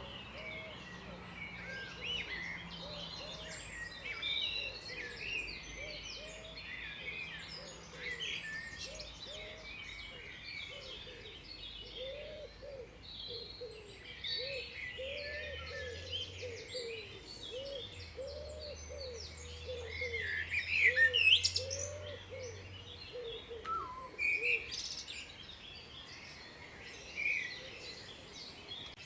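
Several wild birds singing and chirping together in a chorus of short high notes and trills, with a loud burst of song a little past the middle. Beneath them a lower call repeats over and over, about twice a second, and stops near the end.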